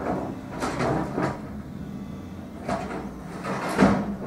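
Hyundai 180LC-7 excavator's diesel engine running steadily while its demolition grapple tears and crumples corrugated iron roofing, with irregular bursts of scraping and crunching metal and timber; the loudest crash comes near the end.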